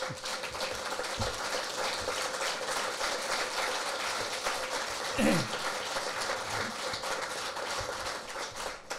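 Audience applauding, a dense, even clatter of many hands that thins out near the end. A single voice calls out briefly about five seconds in.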